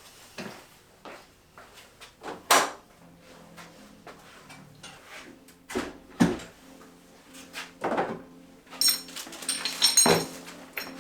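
Workshop gear and lumber being handled and set down: a series of separate knocks and clunks, with a cluster of metallic clinks and rattles near the end.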